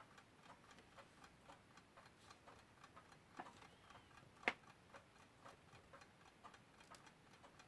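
Faint, steady ticking of a mechanical clock, about four ticks a second, with one sharper click about halfway through.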